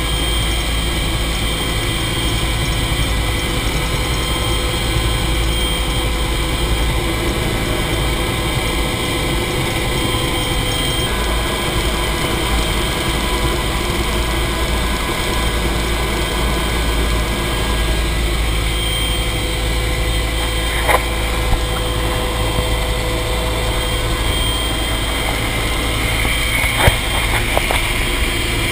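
AH-1 Cobra helicopter heard from inside its cockpit in flight: its turboshaft engine and rotor make a steady, loud low rumble with constant whining tones over it. A few short clicks sound in the last third.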